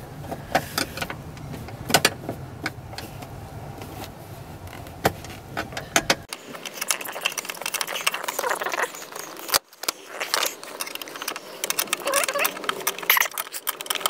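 Irregular metallic clicks and clinks of hand tools and bolts as the seatbelt retractor's mounting bolts are worked loose, along with rustling of the floor carpet being handled. A low hum underneath cuts out abruptly about six seconds in.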